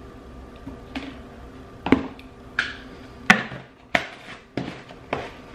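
Handling of a plastic protein powder tub and its scoop: about seven sharp plastic clicks and knocks spread over five seconds as the lid is pressed shut.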